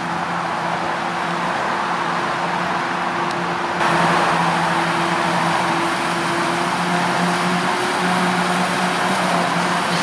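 Krone BiG X 530 self-propelled forage harvester chopping maize, its engine running steadily under a dense hiss of chopped crop blowing from the spout, with tractor engines working alongside. The sound gets abruptly louder and brighter about four seconds in.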